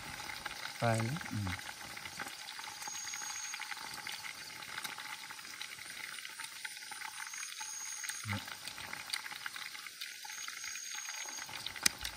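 A pot simmering over a small wood campfire with a steady fizzing crackle, while a spoon stirs in the pot.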